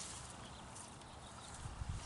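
Faint footsteps, with a few low thumps that get louder near the end.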